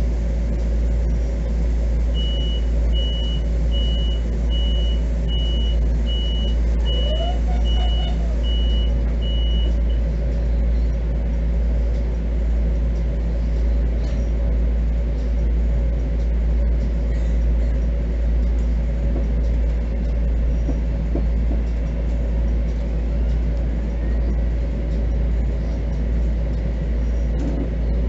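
Steady low rumble and hum of a Bombardier M7 electric multiple-unit passenger car running along the track, heard from inside the car. A couple of seconds in, a short high beep repeats about ten times over some eight seconds, then stops.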